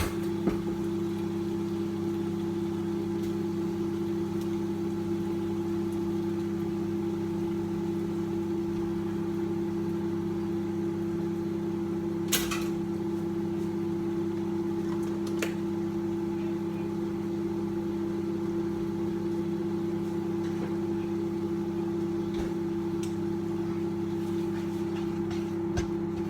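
Microwave oven running with a steady low hum, heating a pouch of precooked brown rice. There are a couple of light clicks partway through.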